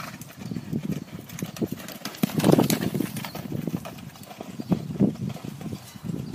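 Hoofbeats of a horse cantering on soft sand footing, a run of dull irregular strikes, with one louder sound about two and a half seconds in.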